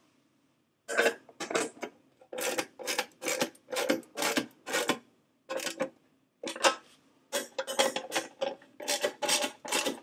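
Socket ratchet wrench worked back and forth to tighten 10 mm license plate nuts and bolts, a rasping click on each return stroke, about two to three strokes a second, with a brief pause past the middle.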